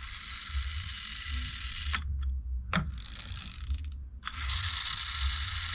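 Toy hot rod's pull-back motor ratcheting as the car is dragged backward along a tabletop, winding its spring. Two long rasping pulls, one of about two seconds and a second starting just past the middle, with a couple of sharp clicks between them.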